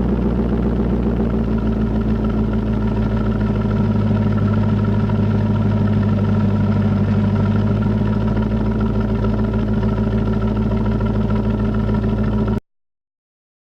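Corvette Z06's V8 engine running steadily with a deep exhaust note, just after its revs fall back. The sound cuts off suddenly near the end.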